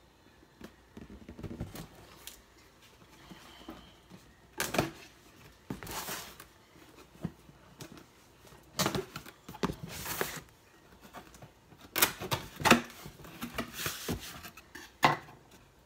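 Blender packaging being handled and pulled open: cardboard and plastic rustling and crinkling in irregular bursts, with clicks and knocks.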